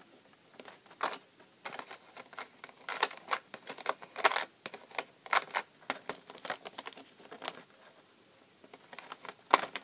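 Plastic packaging tray being handled while an action figure is worked loose from it: irregular clicks, crackles and rustles. They pause briefly, then a few sharper clicks come near the end.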